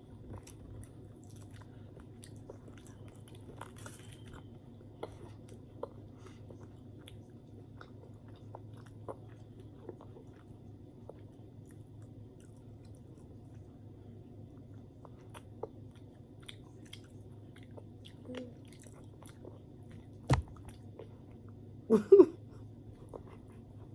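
Chewing and biting sounds of people eating pizza and french fries close to the microphone, with small mouth clicks over a faint steady hum. A sharp knock comes about 20 seconds in, and a short vocal sound about two seconds later.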